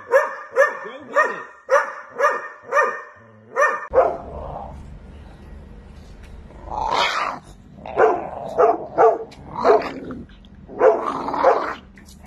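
A large dog barking over and over, about two barks a second, for roughly four seconds. Then, after a cut, a steady low rumble with a small dog growling and barking in a few longer, uneven bursts.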